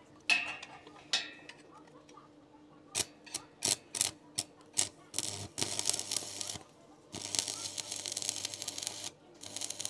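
Electric arc welding on the steel harrow drum of a mini tractor, filling spots where it has cracked through. A few sharp, ringing metal knocks come first, then a quick run of clicks. After that the arc crackles in runs of a few seconds over a low steady hum, breaking off briefly twice.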